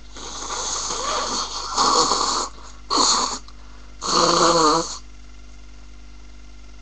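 A woman with a head cold and a blocked nose sneezing: about two seconds of gasping, rising breaths building up, then three loud sneezes about a second apart, the last one voiced.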